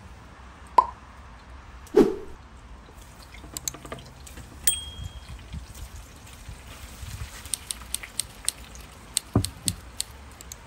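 Scattered crackles and pops from chicken frying in a pan of hot oil over a wood fire. Two louder drip-like plops come about one and two seconds in.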